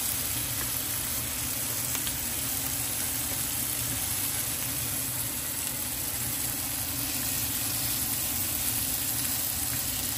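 Marinated paneer tikka and soya chaap sizzling steadily on a grill, over a steady low hum.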